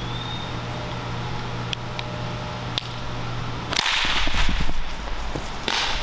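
Military smoke grenade being armed and thrown: two small clicks as the pin is worked, then about four seconds in a loud rushing whoosh lasting about a second as it is thrown, and a second short rush near the end.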